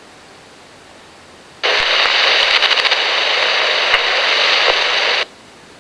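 Radio Shack Pro-97 police scanner with low steady hiss, then about a second and a half in a loud burst of static opens for about three and a half seconds and cuts off suddenly: a keyed-up channel carrying only noise.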